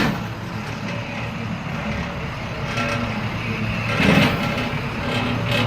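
Delivery truck engine running steadily, with a brief louder burst of noise about four seconds in.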